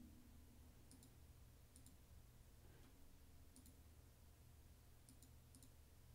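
Near silence with a handful of faint computer mouse clicks at irregular intervals, over a low steady hum.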